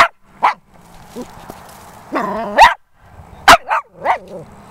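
Small long-haired dog barking excitedly at an opossum: about six short, sharp barks at uneven intervals, with a drawn-out whining cry running into one bark about halfway through.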